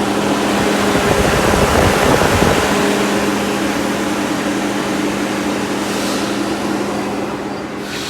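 Heater and air-conditioning unit in a chipper's operator cab running just after being switched on: the blower fan hums steadily with a rush of air, louder for a couple of seconds near the start. The unit is working and moving air well.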